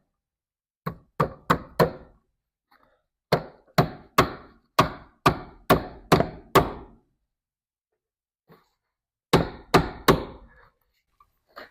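Hammer driving a cable staple into a knot in a wooden stud: a run of four blows, then eight, then three, about two to three a second, each a sharp knock.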